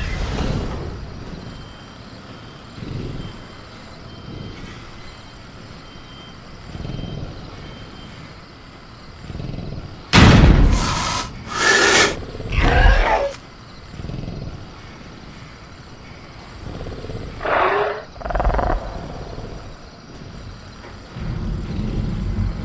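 Designed velociraptor creature sound effect: low grunts early on, then a run of three loud snarling roars about ten seconds in and two shorter calls near the end, over faint cricket chirping.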